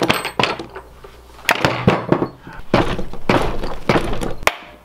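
Rubber mallet striking the cast-aluminium case of a VW 02M transmission, about eight separate blows in a few seconds. The case bolts are out and the blows are knocking the two case halves apart.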